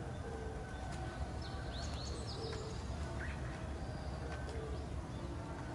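Outdoor ambience: a steady low rumble with birds calling, a few quick chirps about a third of the way in and more faint repeated notes throughout.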